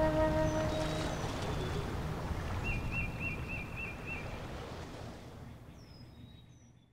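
Low sea ambience fading out to silence, with a bird chirping six times in quick succession around the middle and a few fainter chirps near the end. A held tone stops about a second in.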